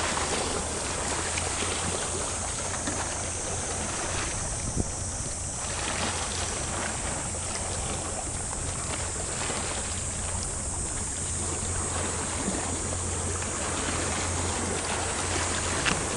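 Steady outdoor wash of sea water and wind at the shoreline, with a low steady hum underneath.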